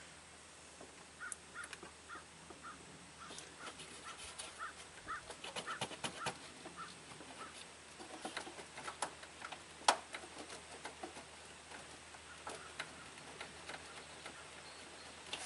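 Faint scattered clicks and light ticks, one sharper click about ten seconds in, with short repeated bird calls in the first few seconds.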